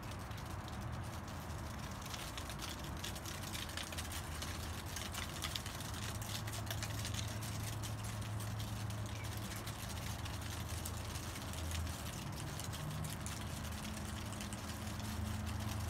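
Wind blowing over the microphone with many small crackles, over a steady low machine hum.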